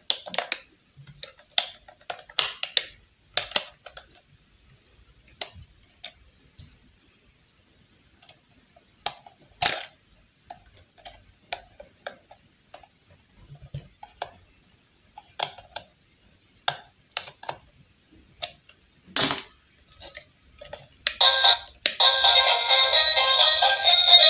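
Small clicks and taps of hard plastic as a toy iron is taken apart: batteries pulled from their compartment, a knife tip working at a screw, the plastic shell separated. Music comes in about three seconds before the end.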